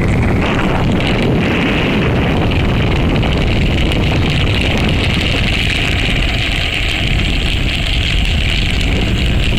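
Steady, loud wind rush buffeting the microphone, mixed with road noise from trike wheels rolling and sliding on asphalt at speed, with a hissing band that holds steady.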